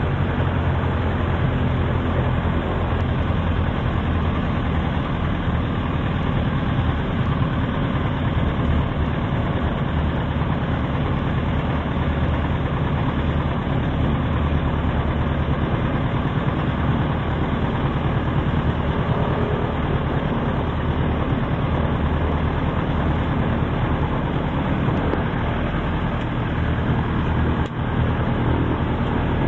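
Piper Super Cub's piston engine and propeller running steadily at low taxi power after landing, an even low-pitched drone.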